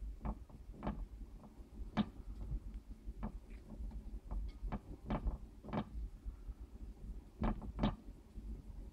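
Irregular light clicks and taps of harvest mice scrambling about their cage, in and around a plastic exercise wheel and on branches, with a louder pair of knocks about three-quarters of the way through, over a faint low hum.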